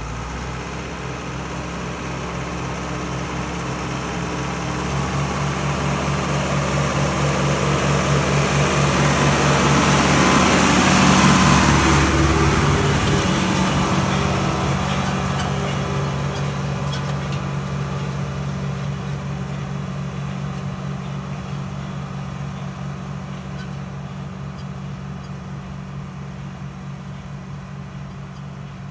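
Tractor engine running steadily as it pulls a Grimme Öko-Häufler potato ridger through the rows. It grows louder as it passes close about eleven seconds in, then fades as it moves away.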